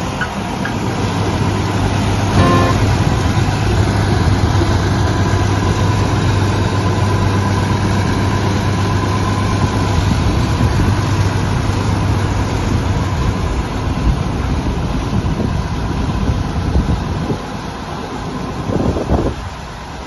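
Road roller's engine running steadily as the roller drives along a road, a low hum that weakens in the second half as the roller moves away.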